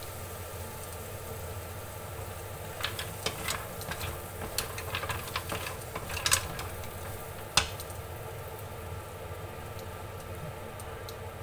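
Green mussels being stirred in a frying pan with a wooden spatula, the shells clicking and clattering against each other and the pan for a few seconds in the middle, ending in one sharper knock. A steady low hum runs underneath.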